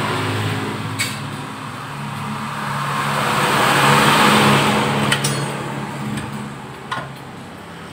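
A road vehicle passing by, its engine and tyre noise building to a peak about halfway through and then fading, with a few sharp clicks along the way.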